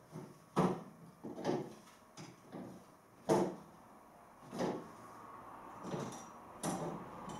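Irregular knocks and clunks, about seven of them, from unscrewing and handling the metal mounting bracket on the back of an electric fire; the sharpest comes about three seconds in.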